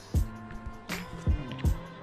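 Background music with a beat of kick drum and snare hits over sustained melodic tones.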